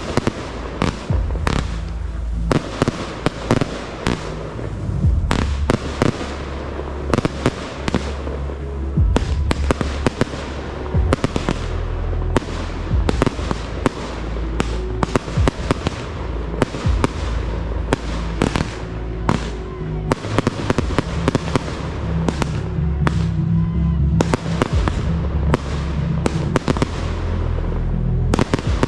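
Aerial fireworks launching and bursting in quick succession: a rapid, irregular string of sharp bangs, several a second at its busiest. Music with a steady bass line plays underneath.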